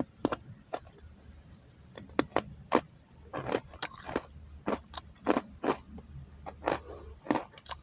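A string of small, sharp clicks and crunches at irregular intervals, about fifteen in all, over a faint low background hum.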